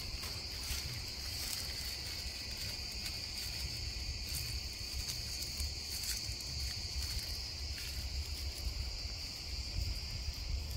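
Steady high-pitched trill of insects, unbroken throughout, over a low rumble on the microphone, with a few faint ticks.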